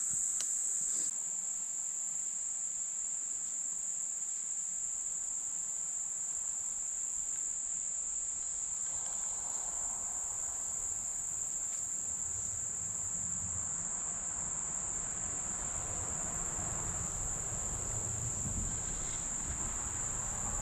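Steady, high-pitched insect chorus that drones on without a break. Faint low rumbling noise comes in over the second half.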